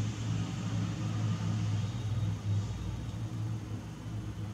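A steady low mechanical hum, deepening slightly about two and a half seconds in.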